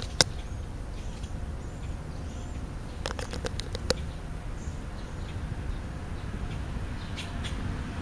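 A crow pecking close to a ground-level microphone: one sharp loud tap just after the start and a quick run of sharp taps and clicks around three to four seconds in, over a steady low outdoor rumble.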